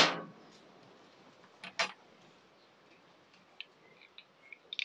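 Small metal clicks and clinks as a small bolt and nut are undone and handled at the pull-cord guide on a lawnmower handle. A sharp clack comes at the start and another just under two seconds in, then a few faint light ticks near the end.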